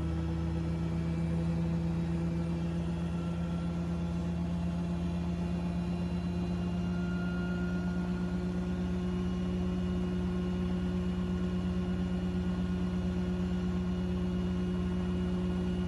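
Beko Prosmart Inverter washing machine on its final spin: the drum turns at high speed with a steady motor hum and whine, the pitch creeping slightly upward.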